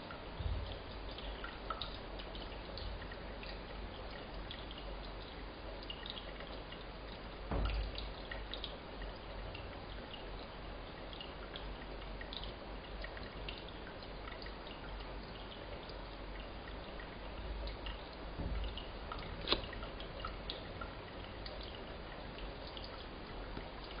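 Water trickling and dripping into and around a person's ear: many small, quick drips over a low rumble, with a louder bump about a third of the way in and a sharp click toward the end.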